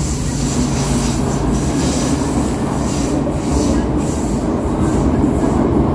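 Vienna U-Bahn SGP Type U2 car (rebuilt from a Type U), heard from inside the passenger compartment, pulling out of a station into the tunnel: a steady running rumble that grows slightly louder.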